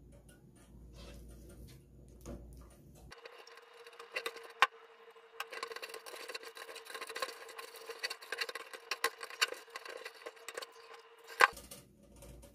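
A wooden spoon stirring thick, lumpy flour paste in a metal pot, with repeated small knocks and scrapes against the pot. A sharper knock comes about four and a half seconds in and another near the end.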